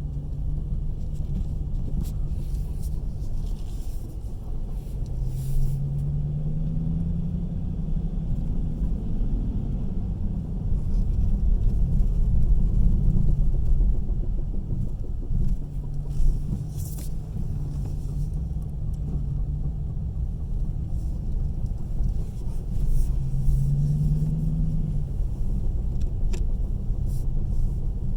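2015 Dodge Challenger R/T's V8 engine running with a steady low rumble, its pitch rising twice as the revs climb, with a few short sharp clicks. This is the car the owner says has a knocking sound.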